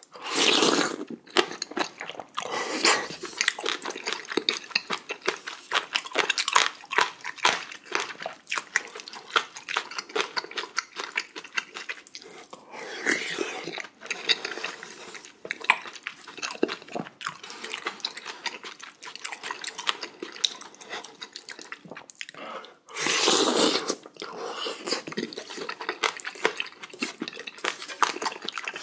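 Close-miked eating sounds of a person eating spicy beef small-intestine hot pot from a wooden spoon: wet chewing and lip smacks throughout, with two louder slurps of broth, one just after the start and one about five seconds before the end.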